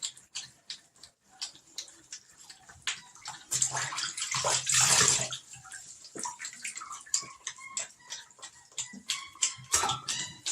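Water splashing and dripping in a bathtub as a puppy moves about in its bath, with small scattered splashes and one louder rush of water about four seconds in.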